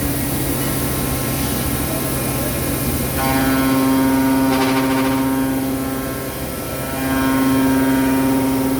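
Mecal MC304 Ariel CNC machining centre running, with a steady hum under a high-pitched spindle whine. The whine sets in about three seconds in, drops away briefly past the middle and comes back.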